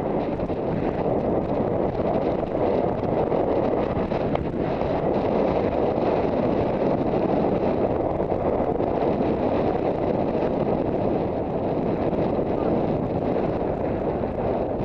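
Steady wind rushing over the rider's-eye-view camera microphone while riding a cross-country course.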